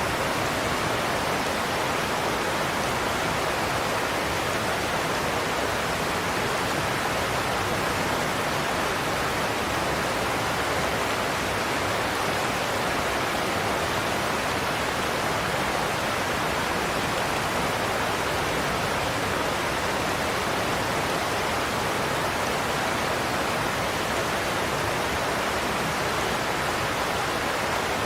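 Godafoss waterfall's heavy cascade rushing over the cliffs as a steady, even roar of falling water that does not change.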